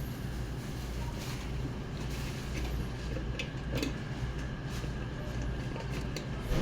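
Steady low background rumble with a few faint, short clicks and taps.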